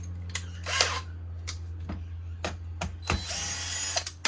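Screws being backed out of the plastic housing of an Ego multi-tool power head with a screwdriver: a string of sharp clicks, then about a second of whirring a little after three seconds in.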